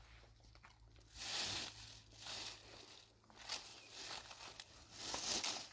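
Crinkling and rustling in about five short bursts of a second or less, as of something being handled.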